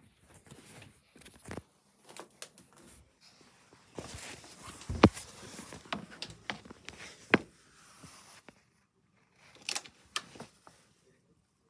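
Handling noise from a handheld camera being carried and swung about: scattered clicks, knocks and rustles, the loudest knock about five seconds in.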